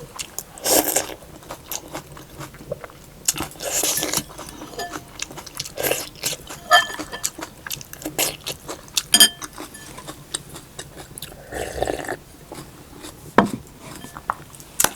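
Close-up eating sounds: a spoon clinks against a bowl twice with a brief ring, among soft chewing and mouth clicks. Three breathy slurps of hot soup come about a second, four seconds and twelve seconds in.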